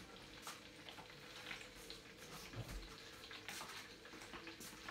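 Faint light clicks and scrapes of a spoon in a cup of sour cream, over a low steady hum.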